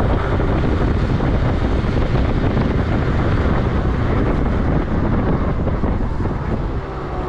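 Wind buffeting the microphone over the running two-stroke engine of a 2001 Yamaha Vino 50 scooter at cruising speed of around 30 mph. The level eases slightly near the end as the scooter slows.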